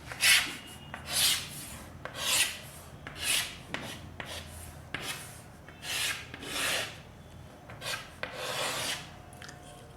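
A writing tool drawing a diagram, making a series of short, rasping strokes about once a second.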